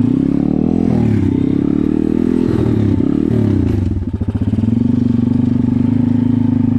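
A 140cc pit bike's single-cylinder four-stroke engine, just restarted, revving up and down, then settling to a steady run about four seconds in.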